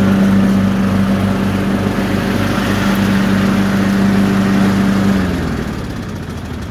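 Cub Cadet riding lawn mower running steadily; about five seconds in its steady hum drops in pitch and dies away as the machine winds down.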